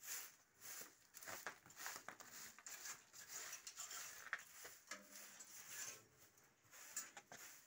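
A short straw hand broom sweeping chaff and dirt across a concrete floor: quick brushing strokes, about two a second.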